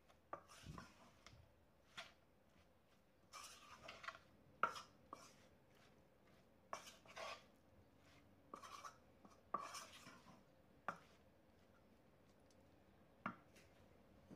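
A wooden spatula mixes stems and shrimp with spice paste in a non-stick pan, giving soft scrapes and knocks against the pan in small clusters every second or so. The stirring stops about eleven seconds in, and one last tap comes near the end.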